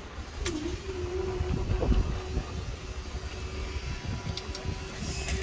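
Level crossing barrier mechanism raising the striped barrier arm: a steady motor hum that starts about half a second in and holds level, with wind rumbling on the microphone. A few sharp clicks come right at the end.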